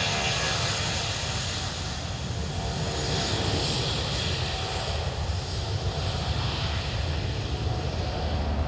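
Airbus A320-200 airliner's twin jet engines at takeoff thrust: a steady, loud rush with whining engine tones running through it.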